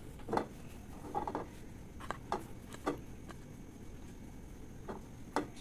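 Scattered light taps and clicks at irregular intervals, from a block of butter in its wrapper being rubbed over a frying pan to grease it.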